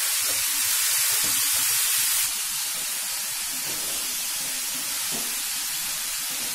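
Diced mixed vegetables sizzling steadily in hot oil in a kadai as they are sautéed down and stirred with a wooden spatula; the sizzle drops a little about two seconds in.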